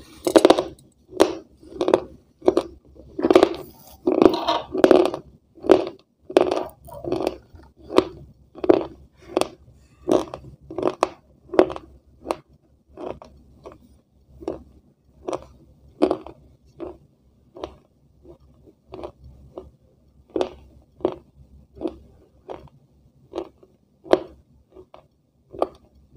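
A person chewing crunchy food close to the microphone, a crisp crunch about every two-thirds of a second. The bites are louder and sharper for the first half, then settle into softer chews.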